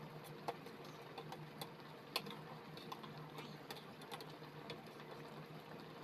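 A metal spoon clinking and tapping against a stainless steel pot as vegetables in broth are moved about: about a dozen light, irregular clicks, the sharpest about two seconds in, over a steady low hum.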